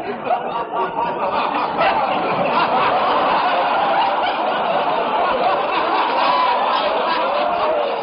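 Studio audience laughing, a long, steady wave of laughter from many people, heard on an old radio broadcast recording with a muffled, narrow sound.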